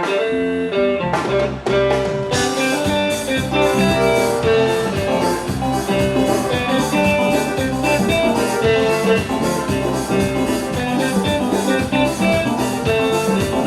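Instrumental intro of a calypso band song, with melody notes over a steady drum beat; the full band comes in about two seconds in.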